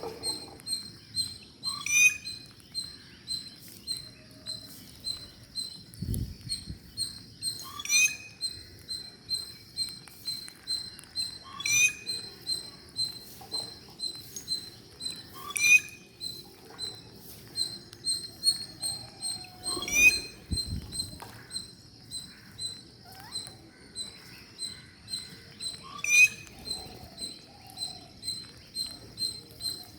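Parrot calls: a steady run of short, high chirps, about three a second, with a sharp rising squawk every four to six seconds.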